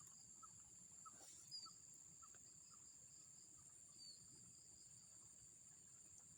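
Near silence: a faint, steady high-pitched insect drone, like crickets in a rice paddy, with a couple of short faint chirps.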